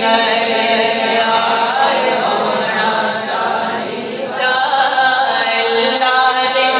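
Men's voices chanting a melodic devotional recitation, amplified through a microphone; it briefly goes quieter a little past halfway, then carries on.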